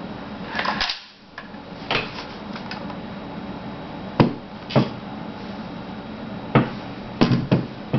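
Metal parts of a Vz. 52/57 rifle clicking and clunking as it is handled and reassembled: about seven sharp knocks at uneven intervals.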